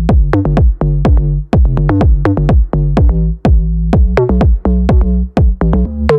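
Electronic dance music with a drum-machine beat, a kick with a falling pitch sweep about three to four times a second over sustained bass notes.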